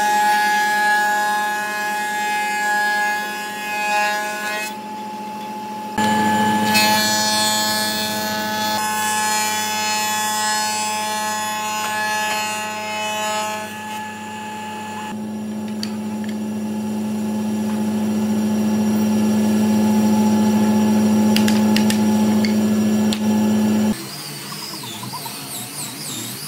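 Woodworking machines running and cutting wood: a spindle moulder with a power feeder shaping a long board, then other shop machines in short shots, with a steady motor hum that changes abruptly several times.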